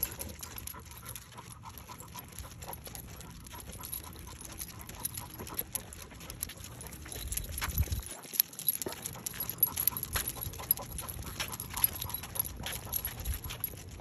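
Two leashed basset hounds walking on a concrete sidewalk, panting, with frequent light clicks and a low rumble that swells briefly about eight seconds in.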